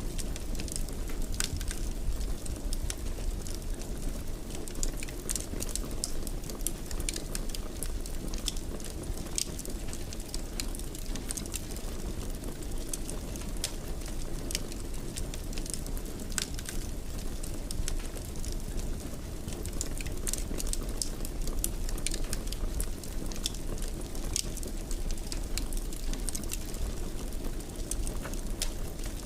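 Fire in a fireplace crackling, with frequent irregular sharp pops and snaps over a steady low rumble of the flames.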